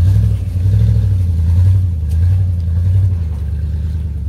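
Engine of a 1996 GMC Sierra 1500 4x4 pickup running under light throttle as the truck crawls over a rough dirt trail, a steady low rumble that eases off slightly as the truck pulls away.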